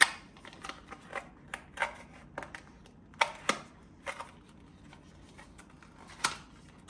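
Unboxing handling noises: a wireless charging car-mount head and its packaging being pulled out and turned over by hand, giving about ten irregular clicks, taps and rustles, the sharpest right at the start and a strong pair a little past three seconds in.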